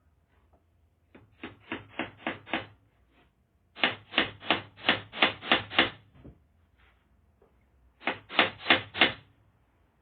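Hammer driving nails, with three rapid runs of blows at about three to four strikes a second and short pauses between the runs.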